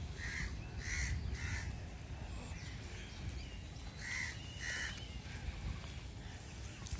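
A crow cawing: three calls in quick succession, then two more about three seconds later.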